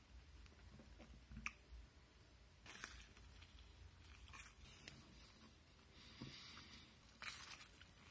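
A person biting into and chewing a slice of pizza, with faint, irregular short clicks and mouth noises.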